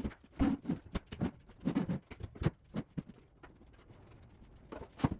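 Light, irregular knocks and clacks of cabinetry being handled: a quick run of them, a pause, then a couple more near the end.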